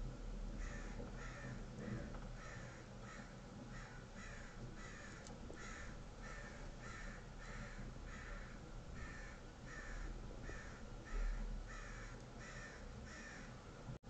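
American crow cawing over and over: a long, even series of short caws, about two a second.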